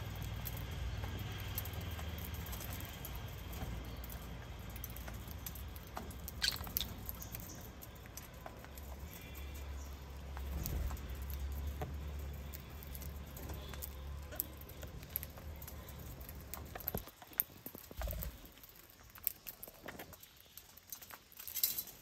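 Lovebirds cracking sunflower seed husks and pecking in a stainless-steel seed dish: an irregular scatter of small clicks and taps. A low rumble sits underneath until it drops out near the end, and one short high call is heard about six seconds in.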